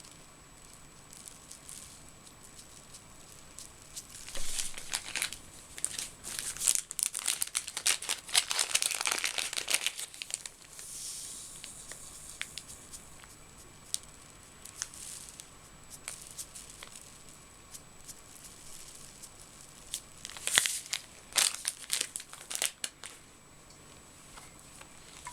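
Crinkly rustling with small crackles in two spells, about four seconds in and again near the twenty-second mark, from coloured salt being sprinkled over a shell-decorated bottle.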